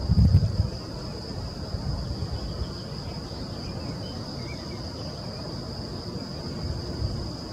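Steady high-pitched insect chirring, like crickets, running without a break. A low rumble of wind or handling on the microphone, loudest in the first second, with weaker ones later.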